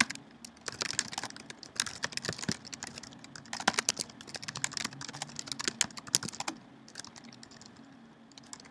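Typing on a computer keyboard: a quick, uneven run of keystrokes that thins out to a few scattered taps after about six and a half seconds.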